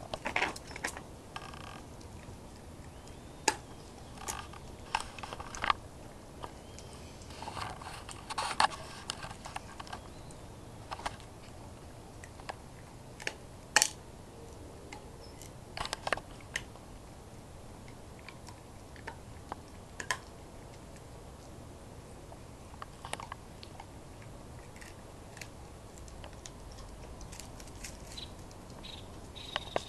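A dog chewing on a stick: scattered sharp crunches and snaps at irregular intervals, with a few louder snaps standing out.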